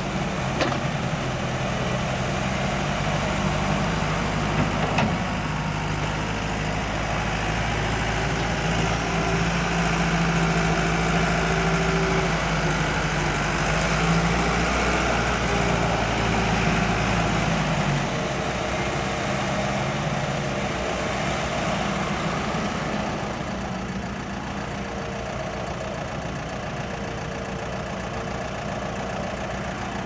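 Diesel engines of an EZ80 zero-tail compact excavator and a wheel loader running as they dig and shift soil, the engine note rising and falling with the work. The sound eases and gets somewhat quieter a little past the middle.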